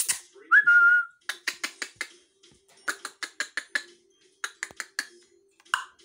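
African grey parrot giving a short whistle that rises and then holds its pitch, followed by several quick runs of sharp clicks.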